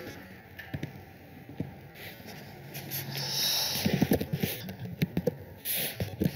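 Computer keyboard being typed on: irregular key clicks, clustered in quick runs, with two short hissing noises between them.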